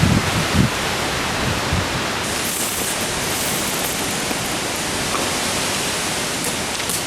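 Strong wind making a steady rushing hiss, with low buffeting on the microphone in the first second.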